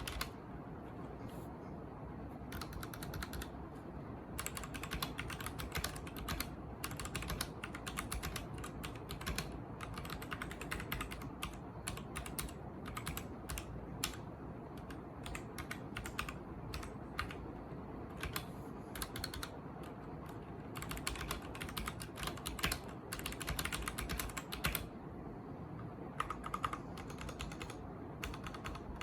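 Typing on a Royal Kludge RK71 mechanical keyboard with red linear switches: fast runs of keystroke clacks in bursts, with a few short pauses between them.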